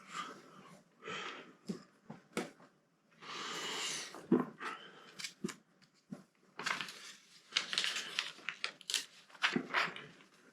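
Small plastic Lego bricks clicking and clattering as they are handled and fitted onto the build, with about a second of rustling some three seconds in.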